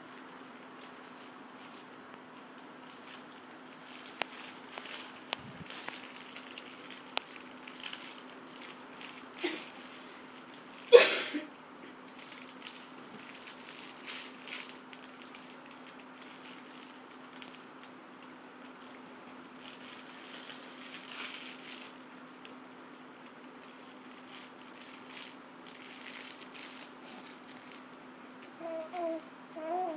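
Soft cloth baby book rustling and crinkling in a baby's hands as he handles and mouths it, with scattered small clicks. One loud, sharp sound comes about eleven seconds in, and the baby gives a few short coos near the end.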